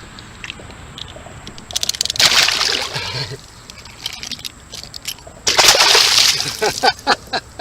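A large bowfin splashing in the water as it is released, in two loud bursts of splashing about three seconds apart.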